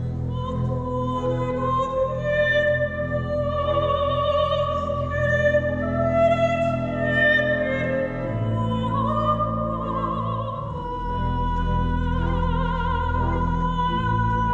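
Soprano singing a slow classical piece with wide vibrato, accompanied by sustained chords on a pipe organ. The organ's low notes change about eight and again about eleven seconds in.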